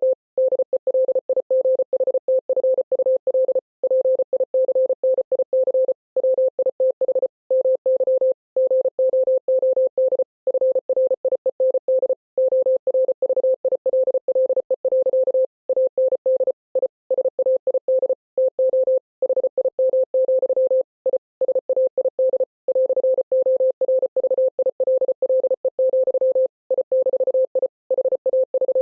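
Morse code sent as a single steady beep tone, keyed rapidly on and off in fast runs of dots and dashes, with longer pauses between words every second or so.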